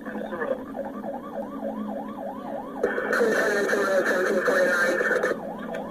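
Police cruiser's siren on yelp, a fast repeating up-and-down wail at about three or four cycles a second. From about three seconds in to past five seconds it turns louder and harsher.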